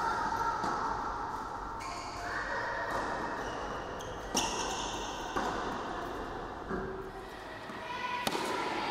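Tennis ball in an indoor rally: sharp racket strikes and bounces on the hard court, about four clear hits in the second half, each a second or so apart, over a steady hall hum.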